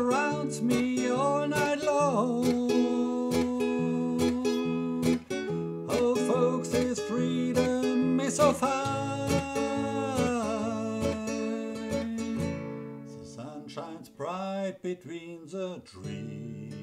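Music: an acoustic guitar playing a steady picked accompaniment, with a wordless vocal melody wavering over it in phrases. It grows quieter in the last few seconds.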